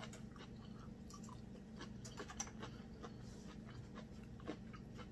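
Faint chewing and small wet mouth clicks while eating a seafood boil, with a few light clicks and taps of fingers picking through the food on a plate, over a steady low hum.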